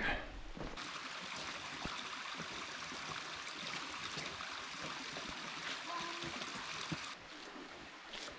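Small canyon creek trickling over a rock ledge into a pool, a steady watery rush that drops away about seven seconds in.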